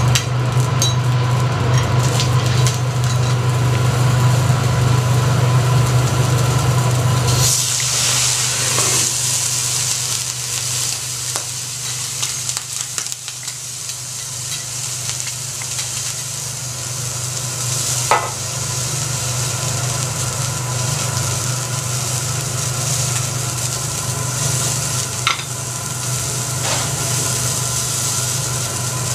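Food sizzling on a hot teppanyaki steel griddle, a steady frying hiss that grows brighter and louder about seven and a half seconds in. A steady low hum runs underneath until then, and a couple of light metallic clicks come later.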